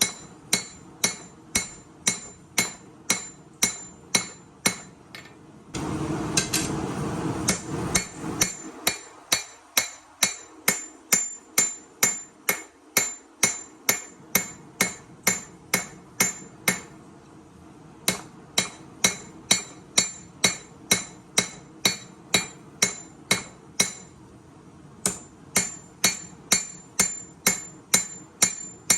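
Hand hammer forging a chef knife blade on an anvil: a steady run of ringing blows, about three a second, with two short pauses. About six seconds in, a rushing noise sounds for about two seconds under the blows.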